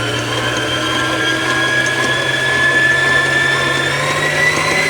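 Electric mixer running at a raised speed, beating a butter, sugar and egg batter: a steady motor whine that creeps slightly higher in pitch.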